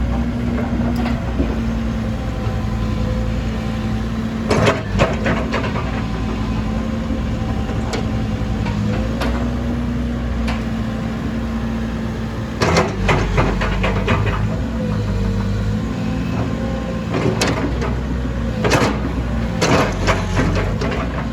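Komatsu PC130-7 excavator's diesel engine running steadily as the machine works, its pitch shifting now and then. Several short bursts of metallic clanking and knocking come from the working machine.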